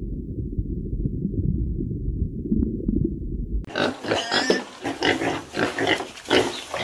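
A low, muffled rumble with nothing high in it. About halfway in it gives way to a group of piglets grunting in quick, overlapping calls.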